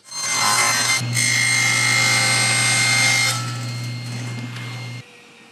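Table saw running and cutting through a clear plastic sheet to take off a small square, with a steady hum and a high whine. The cut is loudest for about two seconds, then the sound eases and drops away sharply about five seconds in.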